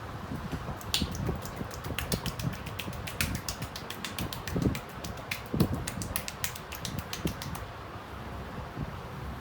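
Quick, irregular slaps and taps of hands on a customer's head during a barber's head massage. They stop near the end, leaving a steady low hum.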